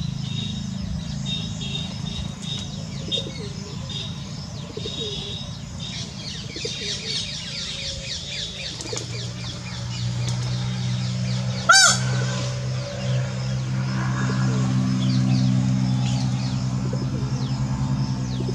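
Small birds chirping and twittering over a steady low hum. The hum grows louder in the second half, and there is one sharp click about two-thirds of the way through.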